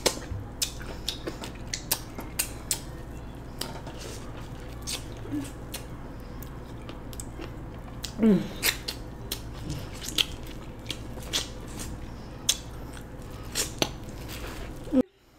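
Close-miked eating of corn on the cob: frequent crisp clicks and crackles as teeth bite and strip kernels off the cob, with chewing in between. A short falling hum about eight seconds in. The sound cuts off suddenly just before the end.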